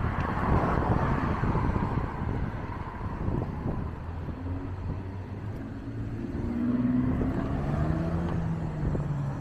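Street traffic heard from a moving bicycle: cars passing on a multi-lane road over a low wind rumble on the microphone. A passing car's hiss swells in the first couple of seconds, and a vehicle engine's hum comes through near the end.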